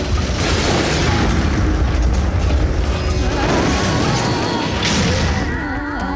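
Film sound effects of a train carriage exploding: heavy booms and a rumbling roar of fire, layered over dramatic music. The explosion noise thins near the end as the music comes forward.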